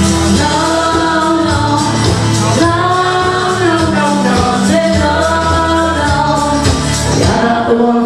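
Woman singing karaoke into a microphone over a backing track, holding long notes that bend in pitch.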